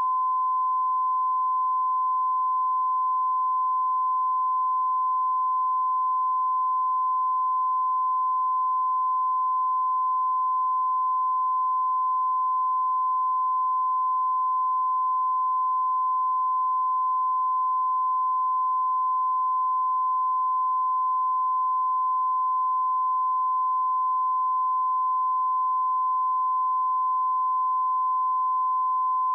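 A single steady 1024 Hz sine-wave test tone, one pure unwavering pitch held at a constant level throughout, used to check speakers or headphones.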